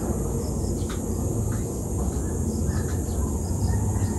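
A steady high insect buzz with a few short, faint bird chirps, over a low steady rumble.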